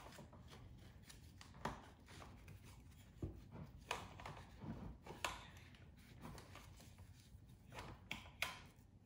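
Webbing strap being pulled tight through its buckle on a car seat transporter: faint rustling with a handful of short sharp clicks and ticks.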